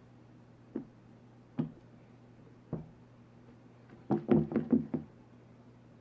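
Kitchen knocks during food preparation: three single knocks about a second apart, then a quick run of about six knocks about four seconds in.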